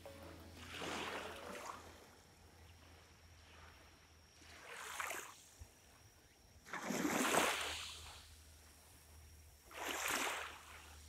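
Small waves lapping on a sandy beach at the water's edge: four soft washes that swell and fade, the loudest about seven seconds in.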